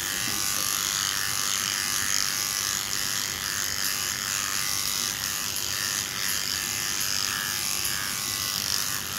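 Cordless electric pet clipper running steadily as it shaves a small dog's matted coat down close to the skin.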